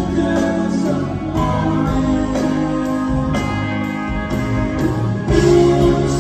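Live rock band playing, with electric guitars and keyboards holding long sustained notes over bass and drums. Recorded from the audience in a large venue.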